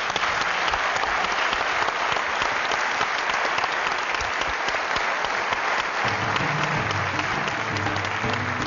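Audience applauding steadily; about six seconds in, music with a low bass line comes in under the applause.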